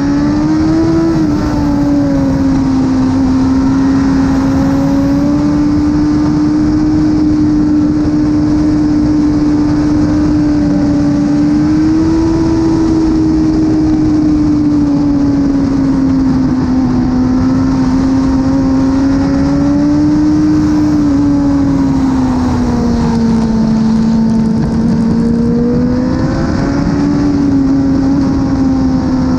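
2017 BMW S1000RR's inline-four engine, with an Akrapovic exhaust, running hard at high revs. Its note climbs in the first second, then holds high with slow swells and dips in pitch, including a dip a few seconds before the end and a rise after it. The engine is heard from on board the bike.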